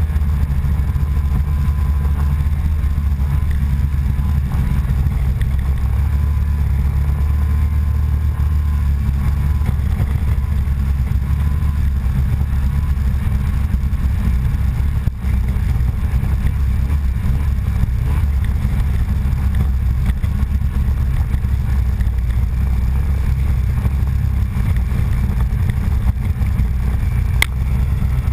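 Engine of a small off-road vehicle running steadily at an even speed along a snowy trail, heard close up from a camera mounted on the vehicle.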